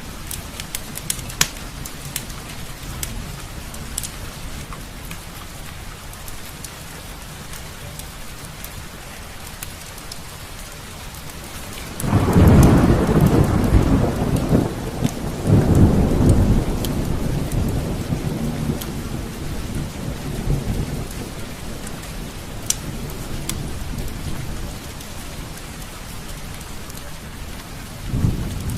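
Steady rain with scattered sharp crackles of a fireplace. About twelve seconds in, a loud roll of thunder breaks in, swells again a few seconds later and slowly dies away, and another rumble starts near the end.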